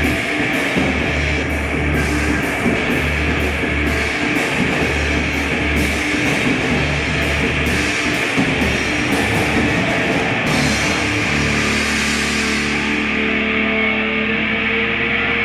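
Loud heavy rock music with guitar and a steady drum-kit beat; about ten seconds in the drums drop out and a held chord rings on.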